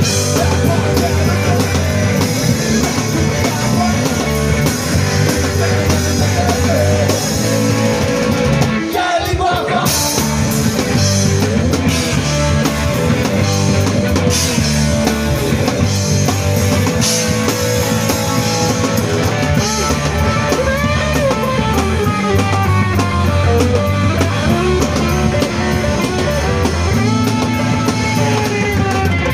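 Rock band playing live: guitar, drum kit and a singer. The band breaks off for a moment about nine seconds in, then comes back in.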